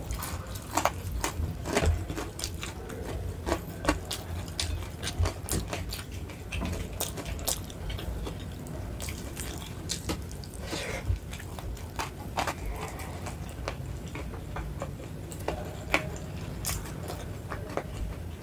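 Close-miked eating: irregular wet chewing and mouth smacks, with sharp little clicks scattered throughout, as a rice meal with fried sides is eaten.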